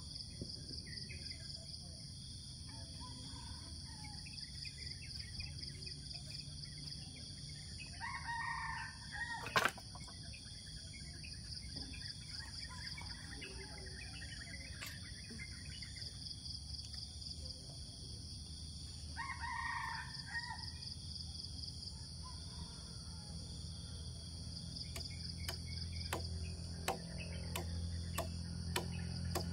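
A rooster crows twice, about ten seconds apart, over a steady pulsing chorus of crickets. A sharp click comes just after the first crow, and a run of clicks follows near the end.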